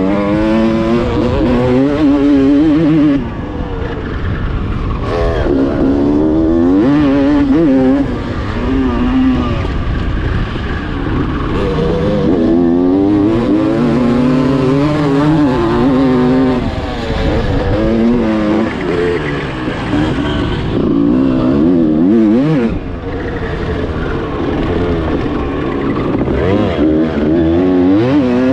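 Honda CR250 two-stroke motocross engine heard from on board. It revs up through the gears with a climbing pitch, then drops back each time the throttle shuts, over and over.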